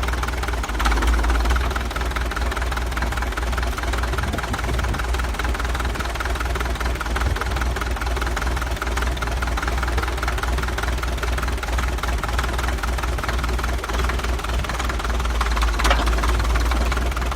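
Caterpillar D2 bulldozer's diesel engine running steadily with a deep, rapid knock, briefly louder about a second in and again near the end.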